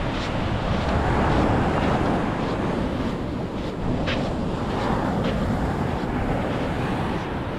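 Small Mediterranean waves washing onto the beach, with wind buffeting the microphone in a steady low rumble. A few faint sharp ticks sound over it.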